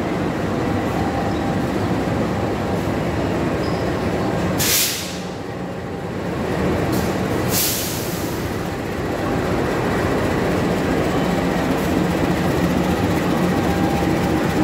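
CC 206 (GE C20EMP) diesel-electric locomotive moving slowly while shunting, its diesel engine a steady hum that grows louder over the last few seconds as it comes close. Two short sharp hisses cut in about five and eight seconds in.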